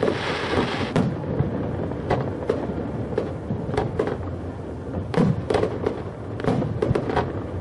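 Aerial firework shells bursting in quick, irregular succession: a string of bangs and thuds, with a dense crackle through the first second.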